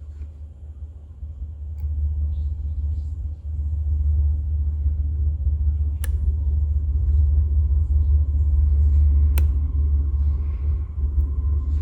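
A loud, deep rumble, with two sharp metallic clicks about six and nine and a half seconds in and faint scratching, as a pick and tension wrench work the pins of an Abus 83/45 Iron Rock padlock.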